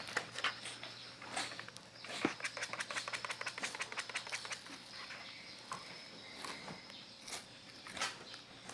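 Cat scratching and pawing at a cardboard house: a run of quick, light scratches and taps on cardboard, busiest in the first half and sparser later.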